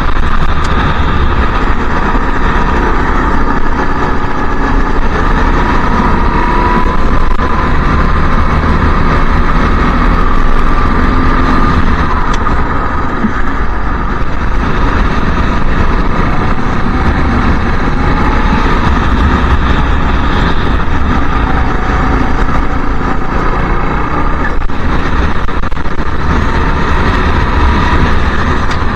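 Racing kart engine running hard, its pitch rising and falling as it accelerates and lifts through corners, with heavy wind rumble on the onboard microphone.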